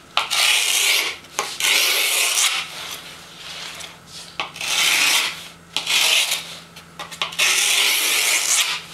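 A screwdriver scraped hard along skateboard grip tape against the edge of the deck, scoring the abrasive tape in a series of scrapes about a second long with short gaps. This is the scoring step that leaves a thin line to guide the razor blade for trimming the grip tape.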